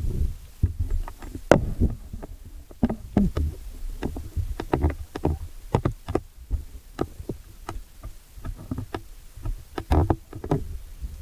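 Muffled underwater sound: a low rumble of moving water with many irregular sharp clicks and knocks, heard through a camera held below the surface.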